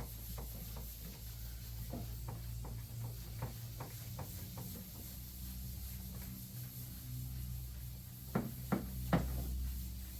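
Wet sponge rubbing polishing compound by hand over the painted body of a lawn tractor: soft, irregular rubbing strokes, with three sharp knocks close together near the end, over a low steady hum.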